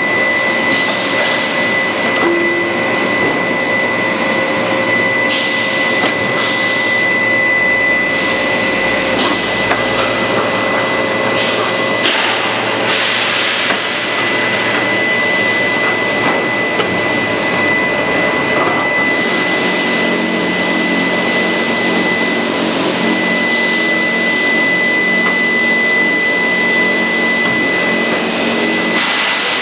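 Grinding ball production line machinery running steadily: a dense, loud mechanical noise with a constant high-pitched whine, and a low hum that joins in about two-thirds of the way through.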